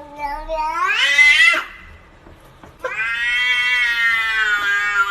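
Domestic cat yowling: a rising call lasting about a second and a half, then a long drawn-out yowl starting near three seconds in.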